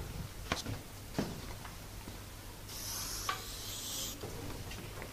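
Faint room noise with a low steady hum, a few light taps, and a brief scratchy rub about three seconds in.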